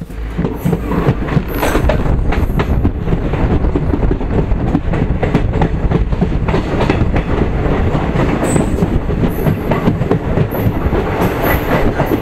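Kanchankanya Express passenger train running at speed: a loud, steady rumble of wheels on the rails with rapid clacking and knocking, and a few brief high squeals.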